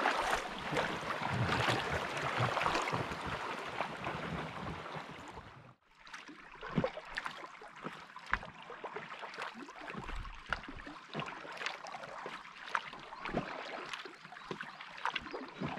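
River water rushing through a shallow riffle, slowly fading, then a sudden cut at about six seconds. After the cut comes quieter, calm water with scattered small splashes and drips from a packraft paddle.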